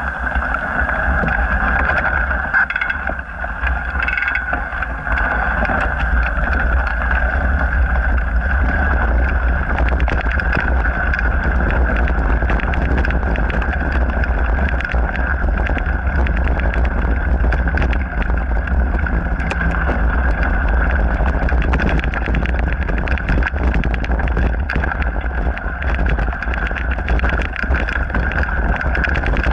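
Mountain bike ride heard through an action camera: a steady low wind rumble on the microphone, tyres running over gravel and dirt trail, and frequent small clicks and rattles from the bike over bumps.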